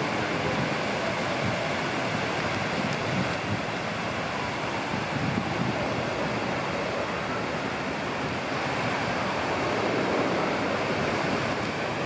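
Water pouring over a wide artificial weir into the pool below: a steady rushing splash.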